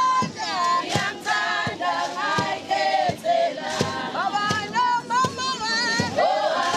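A group of women singing a traditional Zulu song together in chorus, with short sharp knocks through the singing.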